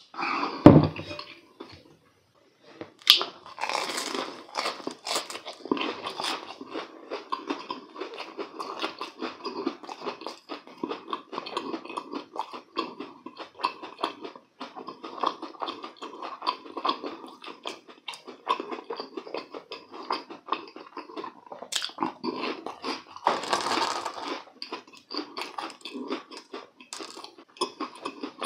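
A person biting and chewing a deep-fried, breadcrumb-coated croquette close to the microphone, the crust crunching with many small crackles. A thump just under a second in, then a crisp bite about three seconds in starts the steady chewing, with a louder crunch about five seconds before the end.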